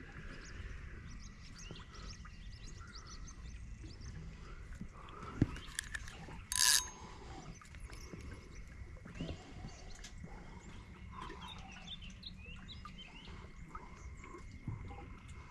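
Birds chirping over a steady thin high drone. About six and a half seconds in, a brief loud rasping burst stands out, preceded by a sharp click a second earlier.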